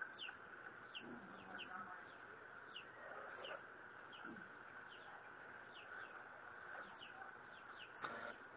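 Faint bird chirps: short falling notes, irregular, about one or two a second, over a steady background hiss. A brief noise about eight seconds in.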